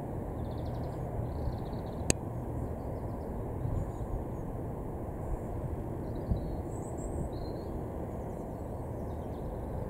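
Open-field ambience: a steady low rumble, with small birds giving short high chirps now and then and one sharp click about two seconds in.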